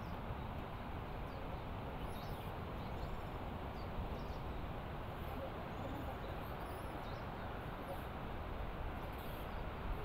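Steady rushing noise of wind and distant surf breaking offshore, with small birds chirping faintly and briefly several times above it.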